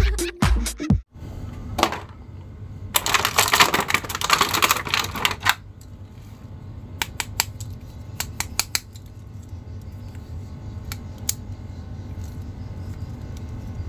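Dance music with a thumping beat cuts off about a second in. Then a clear plastic bag crinkles loudly for a couple of seconds as a plastic action figure is pulled out of it, followed by scattered light clicks and rustles of the figure and wrapping being handled.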